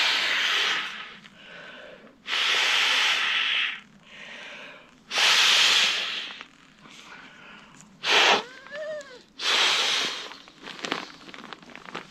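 Inflatable camping pillow being blown up by mouth: five long puffs of breath into the valve, with short pauses between to draw breath.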